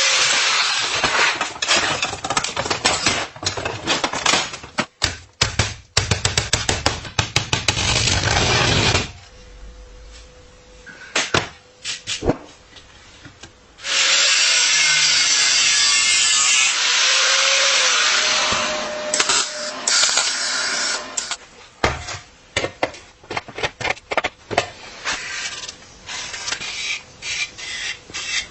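Workshop tool sounds on rusty bicycle parts: repeated scraping and sharp clicking for the first third, a few knocks, then a power tool running steadily for about seven seconds, followed by more scattered scraping and clicks.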